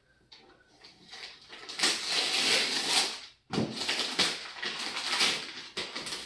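Wrapping paper tearing and crinkling as a present is unwrapped, in two stretches of about two seconds each with a short break between.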